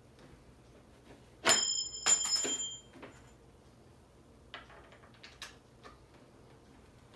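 Metal chair hardware clanking with a short bright ring, once about a second and a half in and again half a second later, as the armrest is worked on with a hex key. A few light clicks follow.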